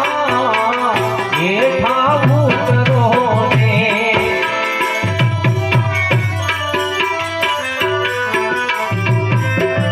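Devotional folk music: harmonium holding chords and melody over a steady tabla rhythm, its deep bass strokes sliding down in pitch.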